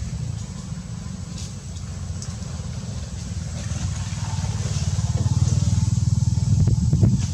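Low, steady engine rumble, such as a motorbike running nearby, growing louder toward the end.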